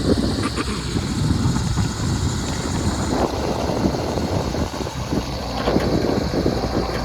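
Diesel engine of an earthmoving machine running, a steady low rumble.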